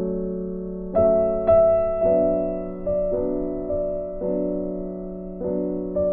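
Background piano music, slow sustained chords with a new chord struck about every second.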